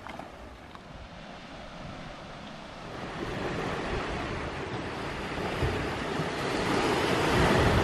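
Sea waves washing in over a pebble beach, growing louder from about three seconds in and loudest near the end.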